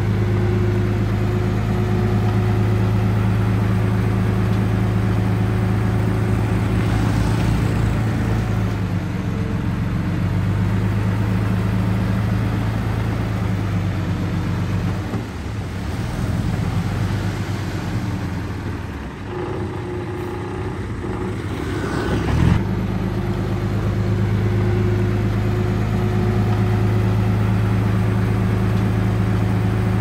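Heavy diesel engines of a dump truck and a small bulldozer running steadily with a low hum. Partway through the hum thins for several seconds, then a short knock and the steady running returns.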